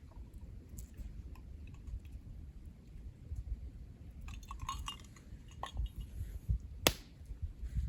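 Scattered light clicks and clinks of small hard objects, with a cluster of briefly ringing clinks a little past halfway and one sharp click near the end, over a low rumble.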